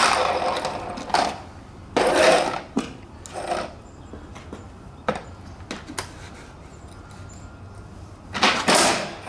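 Skateboard on hard 3D-printed PLA plastic wheels: short bursts of rolling and scraping on pavement, with a few sharp clacks of the board around the middle.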